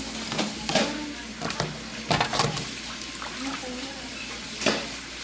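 Water running from a tap into a sink, with a few sharp knocks and clinks; voices in the background.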